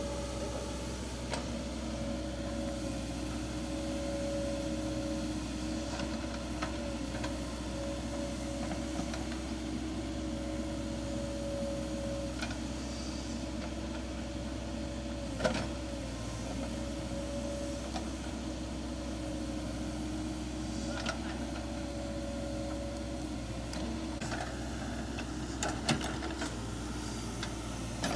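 Hydraulic excavator's diesel engine running steadily, with a held whine over the drone and a few sharp knocks, the loudest about halfway through and another near the end.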